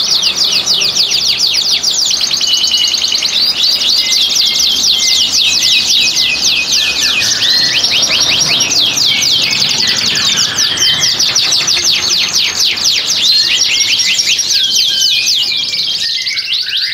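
Domestic canary song: continuous fast rolling trills of sharp, downward-sweeping notes, many per second, passing from one trill phrase to the next. This is the 'ngerek' rolling song of a canary in breeding condition.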